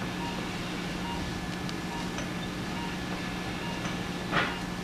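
Steady low hum of operating-room equipment during arthroscopic surgery, with faint ticks and a brief hiss about four and a half seconds in.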